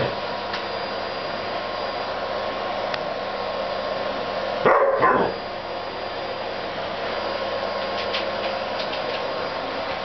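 Vacuum cleaner running steadily with a constant whine, while a husky barks twice in quick succession about halfway through.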